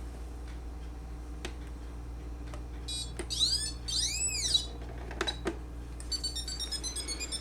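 Robot vacuum cleaner's electronic signal sounds: a few sharp clicks, then two electronic whoops rising and falling in pitch about three seconds in, and a quick run of short high beeps starting about six seconds in.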